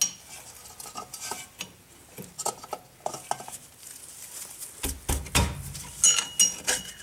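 Screwdriver prying at the rubber dust cap of a drum-brake wheel cylinder: scattered light metallic clicks and scrapes, with a heavier knock about five seconds in and a brief metal ring near the end.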